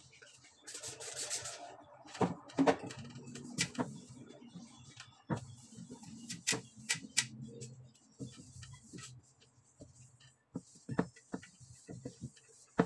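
A trigger spray bottle spritzes several quick times about a second in. Then a cloth wipes a cabinet surface with soft rubbing, mixed with scattered knocks and clicks.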